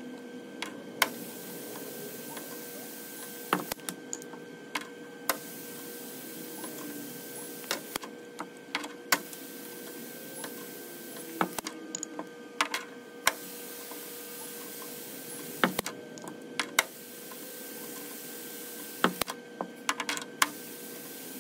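Scattered sharp metal clicks and clinks of hand tools, some in quick runs, from a ratchet and socket working the cap bolts of a connecting rod held in a rod vise. They sit over a steady background hum.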